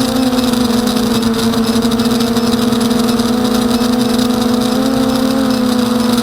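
Emax Nighthawk 250 racing quadcopter's brushless motors and propellers running in flight with a loud, steady buzzing whine, its pitch dipping and rising slightly as the throttle shifts.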